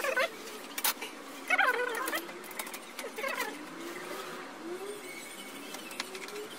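Hand work on an opened LCD TV during reassembly: a few sharp clicks and knocks from handling its parts, mixed with short wavering pitched sounds.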